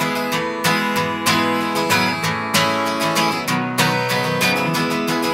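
Music: an instrumental gap in a song, with acoustic guitar strumming chords in a steady rhythm and no singing.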